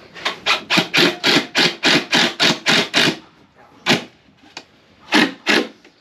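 A glue bottle being shaken hard upside down, knocking about four times a second for about three seconds. This is followed by four separate knocks as a plywood board is set in place.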